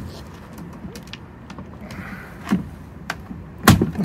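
Handling noise as a container is worked open: scattered clicks and knocks with a short rustle about two seconds in, and the loudest knock near the end.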